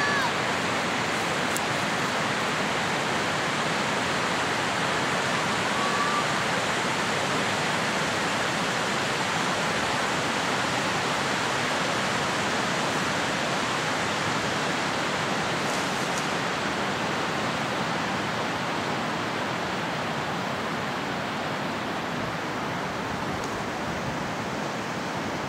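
Steady rushing of a fast mountain river running over rocks: an even, continuous wash of water noise that eases off slightly toward the end.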